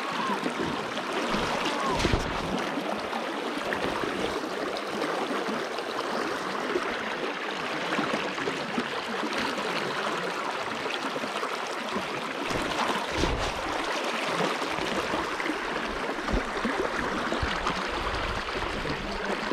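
Swift river current rushing and gurgling around a wading angler's legs, a steady even rush of water with a few short low thumps.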